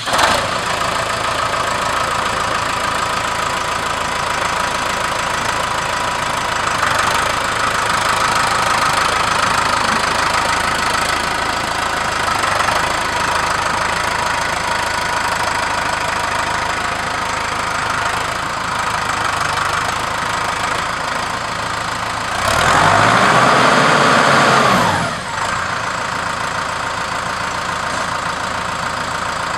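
Case IH Farmall 95U's 4.5-litre four-cylinder turbo diesel idling steadily just after starting. About three-quarters of the way through it is revved up briefly for a couple of seconds, then drops back to idle.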